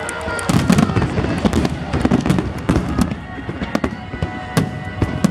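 Aerial firework shells bursting in a dense finale barrage: many deep booms and sharp cracks close together, overlapping into a continuous rumble that thins a little after about three seconds.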